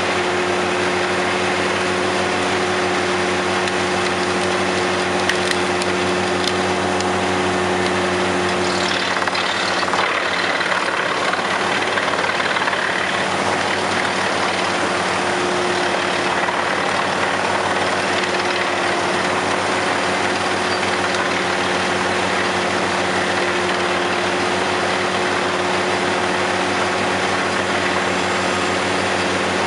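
Tractor-powered wood chipper running steadily as scrub branches are fed into it by a crane grapple. About nine seconds in, the steady engine tone breaks up for a few seconds under a rough crackling as a load of branches is chipped, then settles again.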